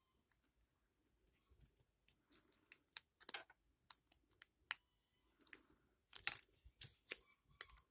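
Small plastic toy pieces being handled and pressed together: a scatter of light clicks and taps, busiest in the second half.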